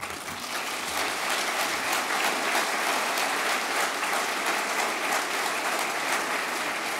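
Large audience applauding, a dense, steady clapping that starts at once and holds without fading.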